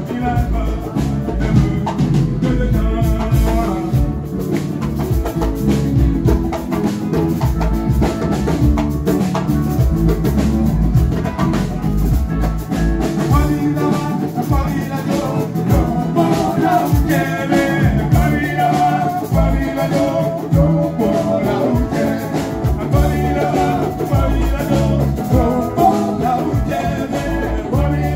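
Live band playing an upbeat song with a drum kit and a singing voice, starting abruptly and keeping a steady beat.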